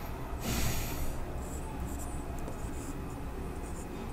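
Felt-tip marker squeaking and scratching on a whiteboard as words are written, with a short breath about half a second in.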